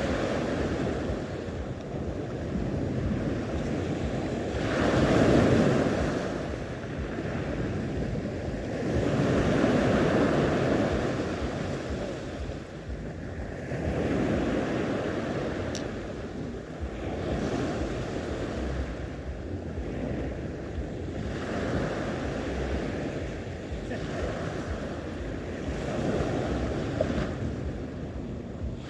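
Sea waves breaking and washing on the shore, the surf swelling and fading every four to five seconds, with wind buffeting the microphone.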